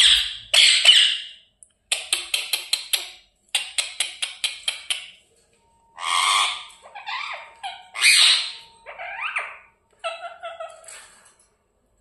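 Pet parrot squawking and chattering: loud harsh calls, two runs of quick clicking notes, and a few short rising whistles near the end.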